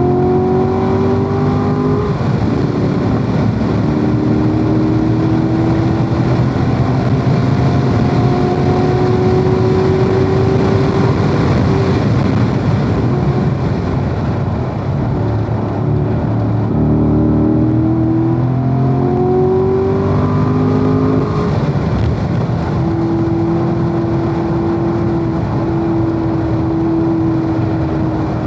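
Corvette V8 engine pulling hard on track, its pitch climbing and then dropping at each gear change, with a steady rush of road and wind noise. It climbs through several gears early on, eases off for a stretch around the middle, then pulls up through the gears again and holds a steady high note near the end.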